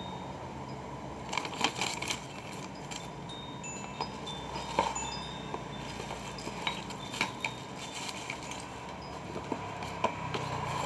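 Light metallic clinks and taps with brief high ringing pings, scattered irregularly, as a small spinning reel is handled.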